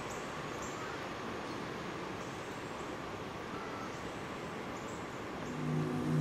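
Outdoor ambience: a steady background hiss with faint, high chirps every second or so. Near the end, soft sustained music fades in.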